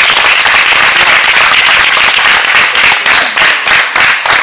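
A small audience applauding by hand. The clapping is a dense patter at first, then thins into scattered single claps from about three seconds in.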